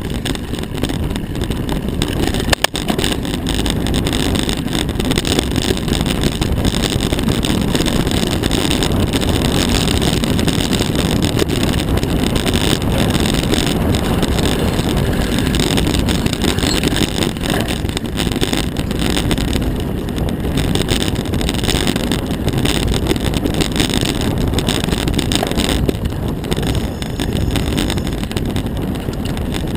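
Steady low rumble of wind buffeting an action camera's microphone as a mountain bike rolls along a dry dirt trail, with tyre noise and frequent knocks and rattles from bumps. One sharp knock comes about two and a half seconds in.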